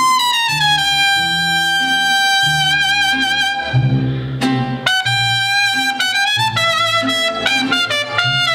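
Mariachi music led by trumpets holding long notes, one sliding down in pitch about a second in, over a pulsing bass line.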